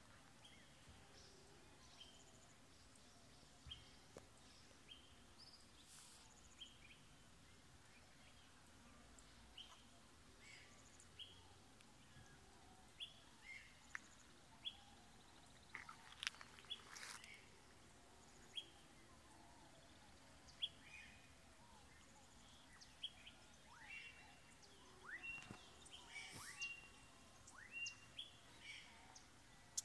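Faint, scattered bird chirps and short calls of the dawn chorus, a few notes at a time, busier toward the end.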